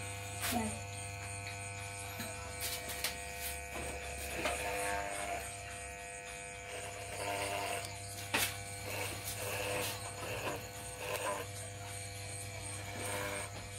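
Electric hair clippers buzzing steadily as they cut hair over a comb, with a few light clicks.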